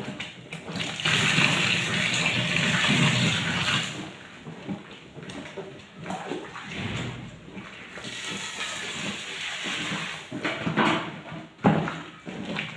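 Hot water poured into a bucket of melted oil phase for homemade hair conditioner, a steady rush for about three seconds, then the mixture stirred by hand, sloshing with a few knocks against the bucket.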